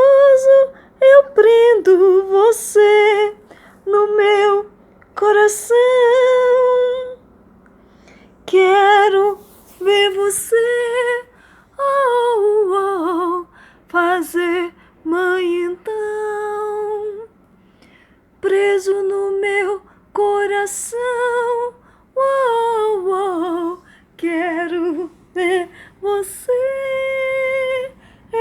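A woman singing unaccompanied in short phrases with vibrato and sliding pitch, holding a long steady note near the end.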